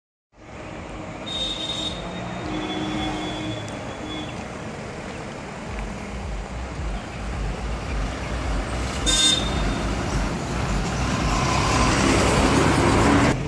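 Road traffic, with engines running and a vehicle horn tooting briefly twice, about a second and a half in and again about nine seconds in. The traffic noise swells near the end, then drops suddenly.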